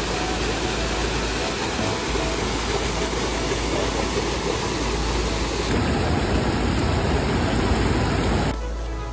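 A waterfall crashing onto rocks: a steady, loud rush of falling water. Near the end it drops suddenly to a quieter level as music comes in.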